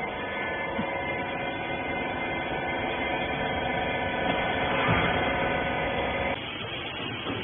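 Hydraulic rag baler's electric motor and pump running with a steady hum, cutting off abruptly about six seconds in.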